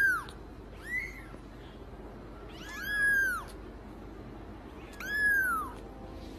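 A cat meowing four times, high-pitched calls that rise and fall in pitch; the second is very short and the last two are longer.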